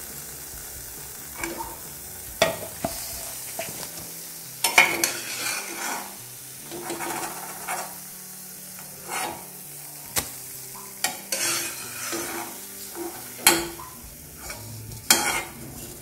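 Oil sizzling steadily as garige deep-fry in a metal kadai, with irregular clinks and scrapes of a steel slotted spoon against the pan as the fried fritters are scooped out.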